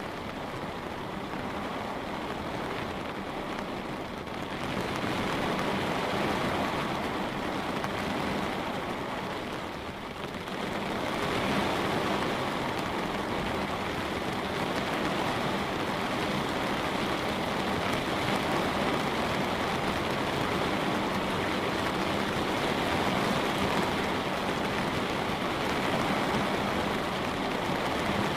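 Light rain falling on a window glass: a steady hiss and patter of drops. It grows a little fuller about five seconds in, dips briefly, then thickens again and holds steady.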